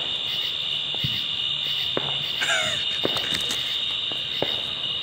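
A steady, high chorus of night insects, with distant firework pops about once a second and a brief falling tone near the middle.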